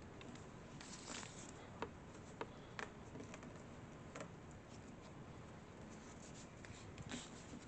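Faint handling noises: a few light clicks and some rubbing from hands working on small parts, over a low steady background rumble.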